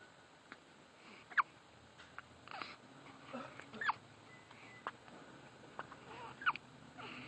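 Repeated hiccups: about four short, sharp squeaks, each falling in pitch, spaced one to two seconds apart, with a few fainter clicks between them.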